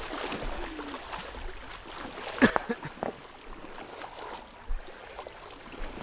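River water splashing and sloshing as people swim and wade through a shallow river, with one sharp, louder hit about two and a half seconds in.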